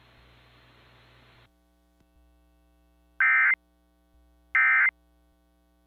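Emergency Alert System End of Message signal: short identical bursts of SAME digital data tones, a harsh electronic warble, sounding twice about 1.4 seconds apart. Before them a low receiver hiss cuts off about a second and a half in.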